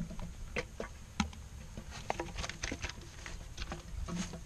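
Irregular light taps and knocks against a plastic bucket as a PVC pipe eel trap is tipped into it to empty out the eels.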